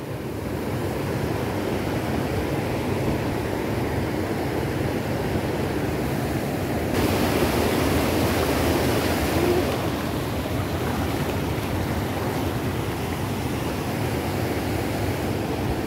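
Fast stream water rushing over rocks, a steady rush that turns hissier from about seven to ten seconds in.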